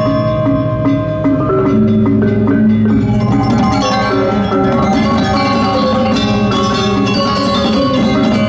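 Balinese gong kebyar gamelan playing: bronze metallophones struck with mallets in dense, continuous figures over sustained low ringing tones, loud and steady with a brief slight dip about a second in.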